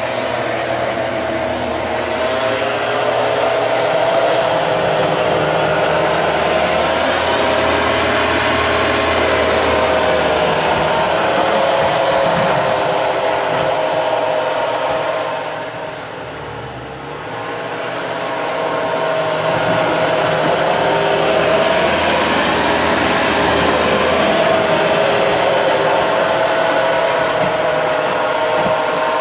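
Bobcat skid steer's engine running hard as it plows, with a steady high whine whose pitch drifts up and down as the machine works. It eases off for a few seconds about halfway through, then picks back up.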